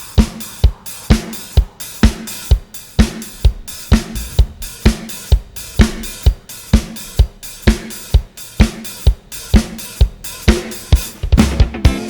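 Drum kit playing a steady beat on its own, kick and snare strikes about two a second with cymbals, as a drum break in a band's live song. An electric guitar comes back in about 11 seconds in.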